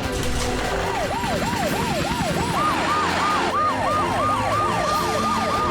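Cartoon emergency-vehicle sirens of the rescue team setting out. A fast wailing siren rises and falls about three times a second from about a second in, and a second siren joins it a couple of seconds later, the two overlapping.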